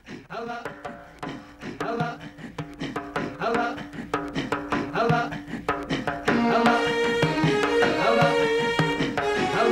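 Instrumental opening of a Somali song: drum beats and pitched instrument notes that start quiet and build. A fuller, louder band comes in about six seconds in.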